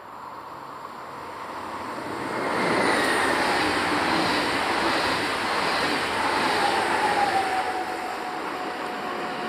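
Electric train approaching and passing at speed: a rushing of wheels on rail that builds and is loud from about three seconds in. Faint tones glide down in pitch as it goes by.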